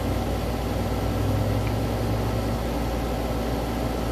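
Steady low hum with a hiss over it: room background noise, with no distinct event. The hum is a little stronger in the first couple of seconds.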